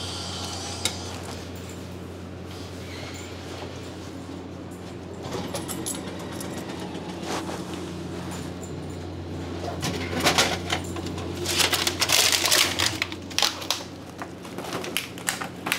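Steady low hum of a vending machine with a few light clicks, then from about ten seconds in, loud crinkling and rustling of a plastic-wrapped pack of wild boar meat being taken out of the machine and handled.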